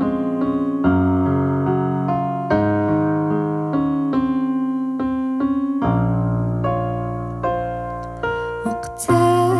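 Grand piano playing a slow introduction, chords and single notes struck in turn over held low notes. A woman's singing voice comes in near the end.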